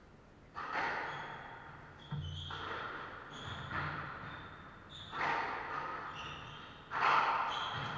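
Squash rally: the ball struck hard five times, about every second and a half, each hit echoing around the enclosed court, the last one loudest. Shoes squeak briefly on the wooden floor between the shots.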